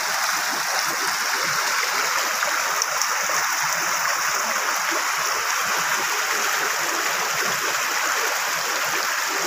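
Swollen, muddy stream after heavy rain, rushing steadily over rocks.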